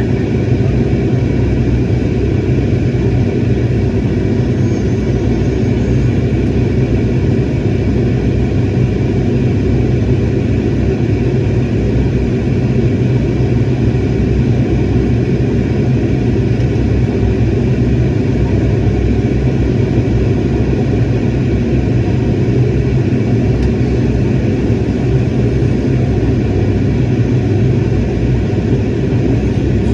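Steady airliner cabin noise heard from a window seat: a constant low rumble and hum of the jet engines and airframe, with no change in level.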